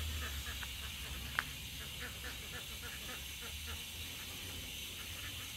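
A flock of domestic ducks quacking in a quick, continuous stream of short calls, with a single sharp click about a second and a half in.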